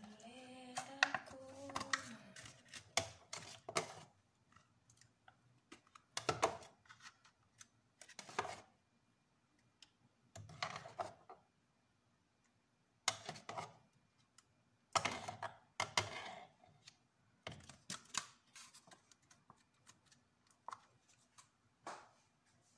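Hard plastic kitchen containers clicking and clattering as they are handled, in short sharp bursts every couple of seconds.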